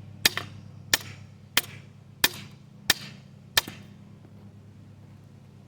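Hand hammer striking hot steel on a thick aluminum block anvil: six evenly spaced blows about two-thirds of a second apart, each with a short ring, stopping about three and a half seconds in. A steady low hum runs underneath.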